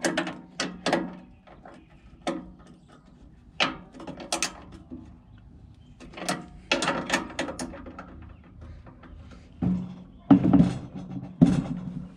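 Ratchet wrench clicking in short bursts, about six times with pauses between, as washered nuts are run down tight onto the mounting bolts of a blade-grinder attachment.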